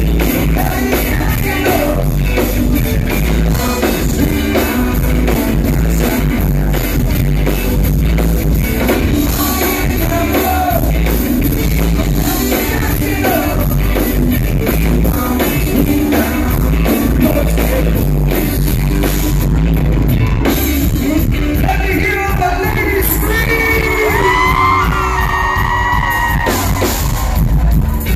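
Live rock band playing loud in a club, with a male singer's vocals over guitars, drums and heavy, booming bass. Near the end a high sustained melody line bends up and down over the band.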